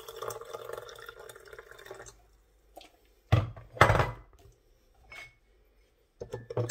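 Warm water pouring into a cup for about two seconds, then stopping. Two loud knocks follow a second or so later, and a spoon begins clinking against the glass near the end.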